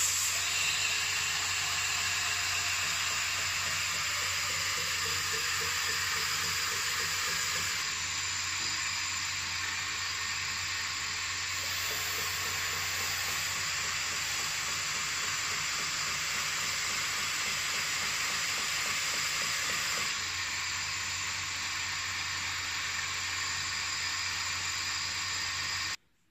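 Belt sander running with an axe's edge held against the abrasive belt: a steady grinding hiss of steel on the belt over the motor's low hum, sharpening the axe without risk of overheating. It cuts off suddenly near the end.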